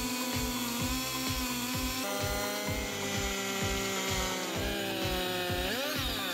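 Chainsaw running at high revs, cutting lengthwise through timber in a chainsaw mill, with its pitch rising sharply for a moment near the end as the bar comes out of the cut. A background music beat runs underneath.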